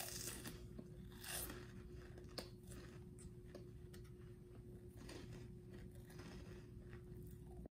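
Faint crunching and chewing of a cheese puff snack, with scattered wet mouth clicks from finger-licking, over a faint steady hum.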